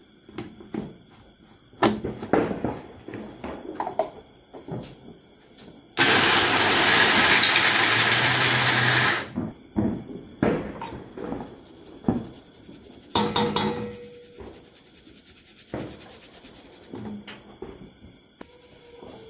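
Electric mixer grinder grinding cashews to powder in its small steel jar: it runs for about three seconds, starting about six seconds in, then cuts off. Around it come short clinks and knocks of the steel jar and containers being handled and tapped as the powder is emptied out.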